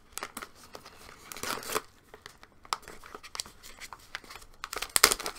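Plastic bag of popcorn being opened, crinkling and tearing, with louder crackling about a second and a half in and again near the end.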